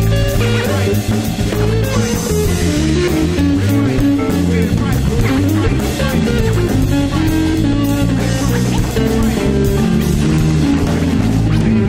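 A band playing: an electric guitar picks a melodic line over bass guitar and a drum kit, loud and steady.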